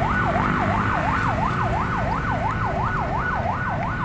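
Electronic level-crossing warning alarm (genta) sounding, a rapid warbling tone that sweeps down and up about four times a second without a break.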